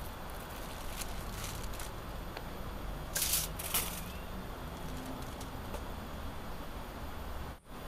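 Steady outdoor background with two short rustles close together about three seconds in.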